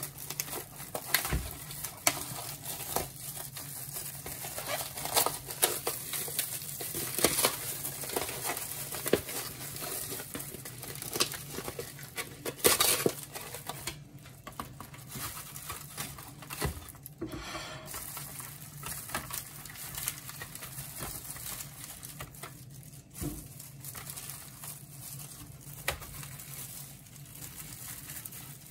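Plastic cling film being peeled off a meat tray and crumpled by hands in disposable plastic gloves: dense crinkling and crackling for about the first half. Then sparser rustling as the raw meat strips and paper tray liners are handled.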